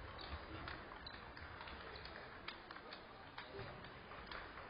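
Table tennis balls clicking off paddles and tables from several games at once, irregular sharp ticks about two or three a second, over a low murmur of voices.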